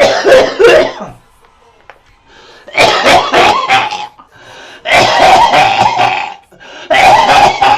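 A man coughing hard in repeated fits: a quick run of short coughs at the start, then three longer coughing bouts, each lasting a second or more.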